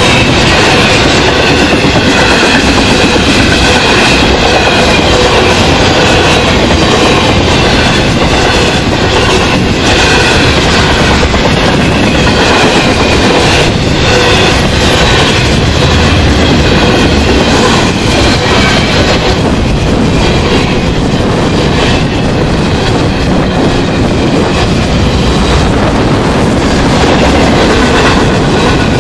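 Intermodal freight cars carrying trailers and containers rolling past at speed close by: a loud, steady rumble of steel wheels running over the rails.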